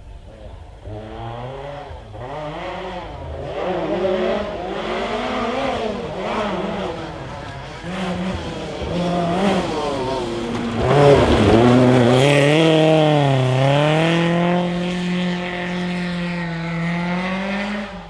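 Historic rally car at full attack: the engine revs up and drops back again and again through gear changes as the car approaches, is loudest about two-thirds of the way through as it passes, then holds a steady high note before cutting off suddenly.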